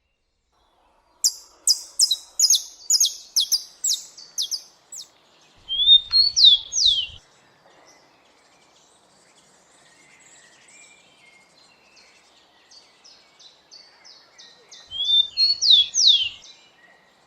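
Rufous-collared sparrow (tico-tico) singing two songs. Each is a run of quick high chips followed by a couple of sharp slurred whistles. The first starts about a second in, and the second comes near the end.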